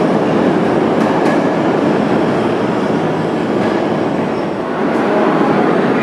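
New York City subway train on the 7 line running underground, a steady loud rumble of steel wheels on rail with a couple of faint clicks.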